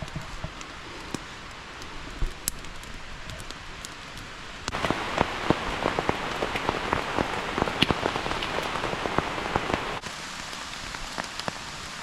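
Rain falling steadily, with many individual drops tapping close by. It turns heavier and louder about five seconds in, then eases back near ten seconds.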